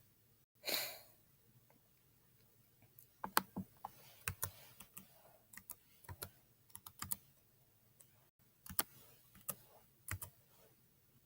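Computer keyboard being typed on in short, irregular runs of sharp key clicks, starting about three seconds in and stopping shortly before the end. A short breath-like hiss comes about a second in.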